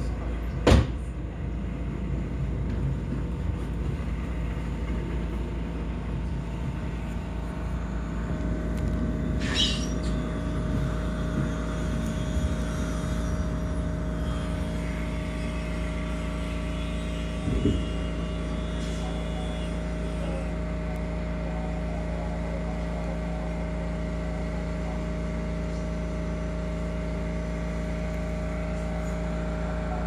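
Interior of an electric commuter train slowing to a halt and then standing, with the steady hum of its onboard equipment. A sharp clack comes about a second in, and a short hiss about ten seconds in.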